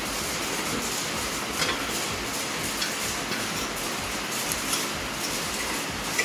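Porsche Cayenne front brake caliper handled by hand and fitted back over the brake rotor: a few light metallic clicks and knocks, spaced a second or more apart, over a steady hiss.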